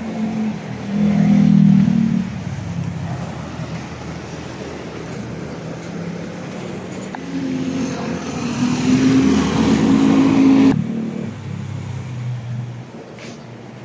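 Motor vehicle engines passing, louder twice: about a second in and again from about eight seconds, the second cutting off suddenly.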